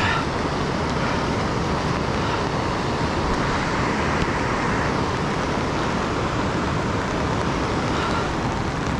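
Steady rushing of the Youghiogheny River running high and brown through whitewater rapids.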